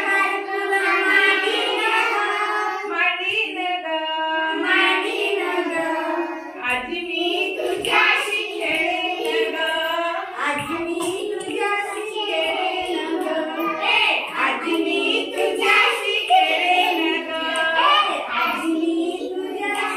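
A woman and a group of young children singing a Marathi action song together in unison.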